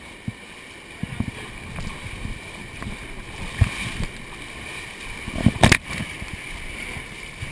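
Whitewater rapids rushing and splashing against an inflatable raft, heard from a camera on its bow, with scattered thuds and a loud splash about five and a half seconds in as a wave breaks over the bow.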